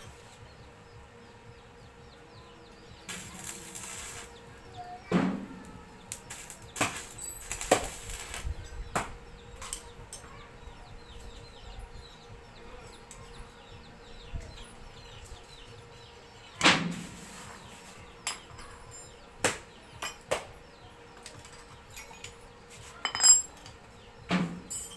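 Scattered metal knocks and clinks, with three louder ringing strikes about five seconds in, near the middle and near the end, and two short bursts of hissing crackle about three and eight seconds in, over a faint steady hum.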